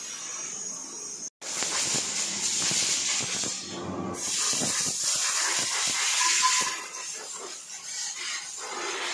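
Compressed air hissing from an air gun blowing water off a freshly washed motorcycle, loud for several seconds with a brief dip in the middle, then quieter near the end.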